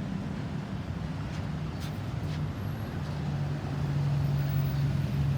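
A motor vehicle's engine running with a steady low drone, growing slightly louder near the end, amid road traffic noise; no siren is sounding.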